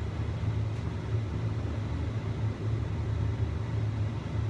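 A covered clay pot of soup boiling hard on the stove, making a steady, uneven low rumble.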